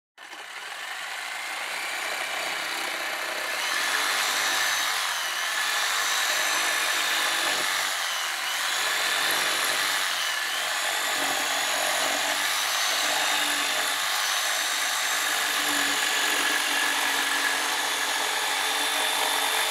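DeWalt corded jigsaw with a spider blade cutting along the edge of a 2x6 tabletop at an angle. The saw runs steadily, its pitch dipping and recovering several times as the blade bites harder into the wood.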